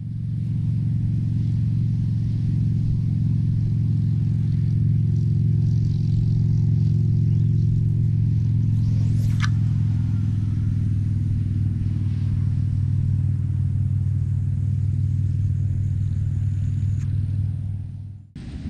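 A steady low hum like a running engine, with several pitches stacked together, runs throughout. About nine seconds in, a single quick swish rises sharply in pitch, fitting a long surf rod whipping through a pendulum cast.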